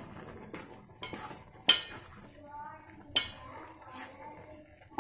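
A steel spoon clinking against the side of an aluminium pot while moist grated carrot halwa is stirred, with about five sharp clinks and soft scraping between them; the clink a little under two seconds in is the loudest.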